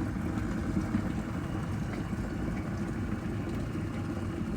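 COMFEE' electric kettle with its water at a full boil: a steady low rumble.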